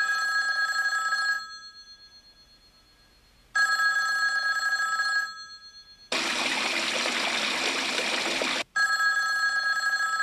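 A telephone rings three times, each ring about a second and a half long and fading out after it. Between the second and third rings a shower runs for about two and a half seconds and cuts off abruptly.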